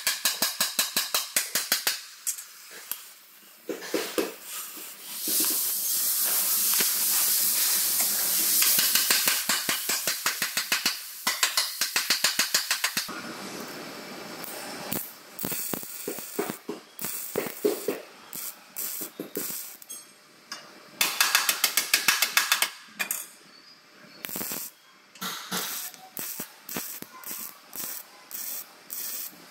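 MIG welding on a steel chassis frame rail: the arc gives a rapid crackling buzz over a hiss. It comes in stop-start bursts, one long run of several seconds in the middle and shorter, choppier bursts toward the end.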